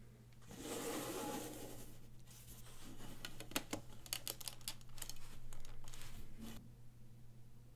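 LEGO wedge plates in a flexible ring clicking and rattling against one another as gloved hands handle and squeeze it, in many quick, irregular clicks. Before the clicks, about a second of rustling handling noise.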